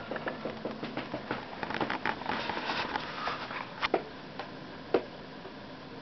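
Irregular rustling and clicking from the camera being handled and moved, with two sharper knocks about four and five seconds in, over a faint steady hum.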